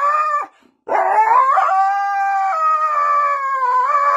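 Husky howling: one long, wavering howl that breaks off about half a second in, then after a brief pause a new howl that rises and is held.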